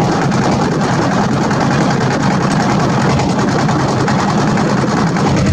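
A river boat's engine running steadily under way, loud and even with a fast regular beat, heard from on board.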